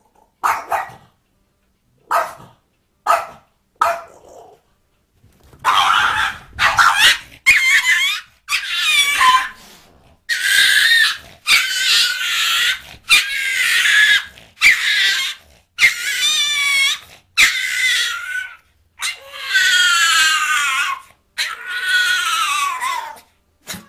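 Dog calls: a few short, sharp barks, then a long run of loud, high yelps and whines with wavering, falling pitch, about a dozen in a row.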